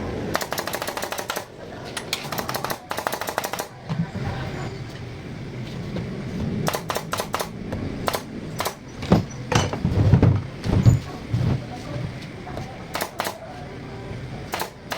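Woodworking on an MDF enclosure: two bursts of rapid clattering in the first three seconds, then single sharp knocks and taps at irregular intervals.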